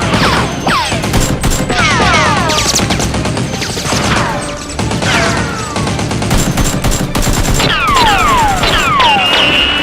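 Gunfire sound effects: rapid bursts of automatic fire, with repeated falling whistling tones through the shooting.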